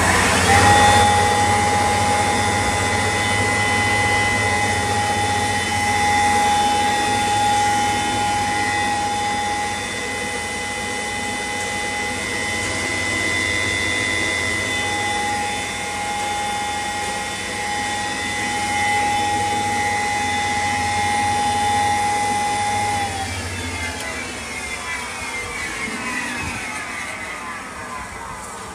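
5 HP maize cattle-feed grinder, driven by an electric motor through a belt, running with a steady high whine from its spinning rotor. About 23 seconds in it winds down, the whine falling in pitch and fading as it coasts.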